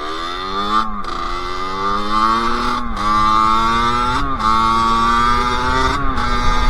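Sherco SM-R 50 50cc two-stroke single-cylinder engine pulling hard under acceleration, its pitch climbing and then dropping with a brief throttle-off at each upshift, about four gear changes in a row.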